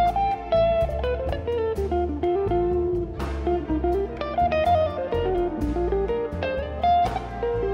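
Live band music: an electric guitar plays a single-note melody over double bass and drums, with a few ringing cymbal hits.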